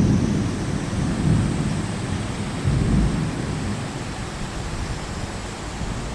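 Torrential rain pouring down in a sudden cloudburst, with a deep low rumble that fades away over the first few seconds.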